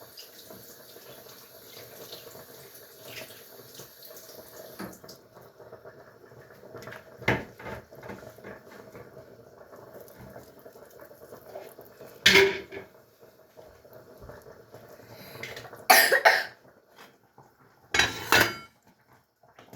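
Kitchen tap running until about five seconds in, then the light clatter of dishes and a few short, loud coughs in the second half.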